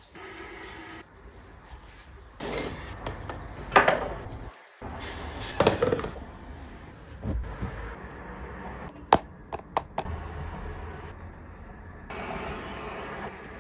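Kitchen clatter: a metal pot and its lid handled on a counter, with several knocks and clinks, then a quick run of sharp clicks about nine seconds in.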